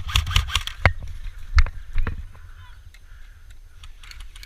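Airsoft guns firing: a quick burst of rapid clicking shots, then a few single sharp cracks over the first two seconds, with low rumble of wind and movement on the microphone.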